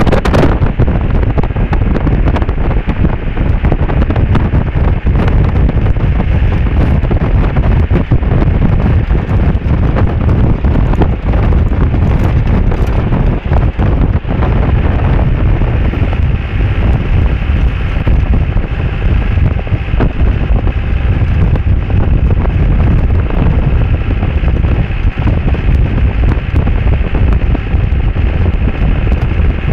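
Loud wind buffeting the microphone of a camera held outside a moving Land Rover Defender, with the vehicle's running noise underneath.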